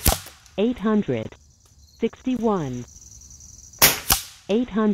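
Shots from a .25-calibre Air Venturi Avenger bullpup PCP air rifle. A sharp crack comes right at the start, and a second shot near the end is a crack followed by another about a third of a second later.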